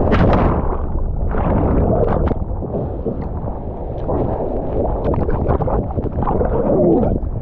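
Sea water splashing and rushing around a GoPro action camera while surfing, with wind buffeting the microphone and sharp splashes scattered through.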